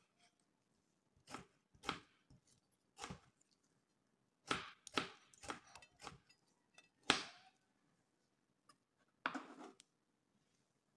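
Knife chopping tomato on a cutting board: about ten irregular knocks of the blade striking the board, some in quick runs, the loudest about seven seconds in.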